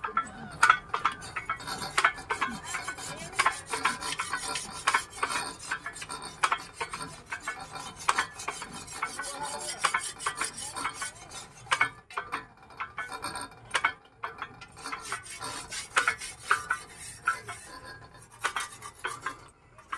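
A 12 hp single-cylinder stationary diesel engine running, with a dense, uneven clatter of metallic ticks and knocks.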